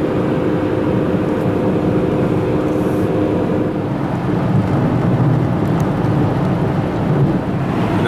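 Road noise inside a car travelling at freeway speed: a steady rumble of tyres and wind, with a low steady hum for the first half that drops away about halfway through.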